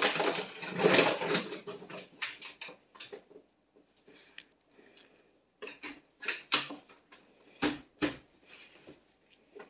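Mylar food-storage bags crinkling and rustling as they are handled and labelled, in irregular crackly bursts, heaviest in the first second and a half, with scattered sharp crinkles again around six to eight seconds in.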